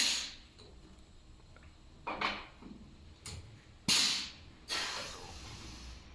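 A series of separate knocks and clunks a second or two apart, the sharpest and brightest about four seconds in, each dying away quickly.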